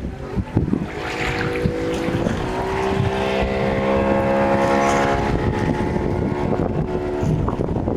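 A boat engine running steadily at one pitch as it passes, growing louder to the middle and then fading, with wind buffeting the microphone.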